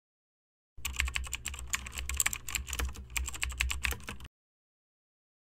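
Rapid clicking of computer keyboard keys being typed over a low steady hum. It starts about a second in and cuts off suddenly after about three and a half seconds.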